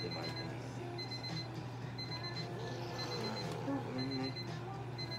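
Electronic beeping: a high short beep about once a second, steady and unchanging, over a steady low hum.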